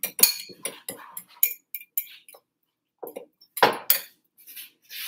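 A metal utensil clinking against a glass mixing bowl while an egg and vegetable mixture is stirred, a quick run of clinks at about four a second. After a short pause comes a louder knock and some softer scraping.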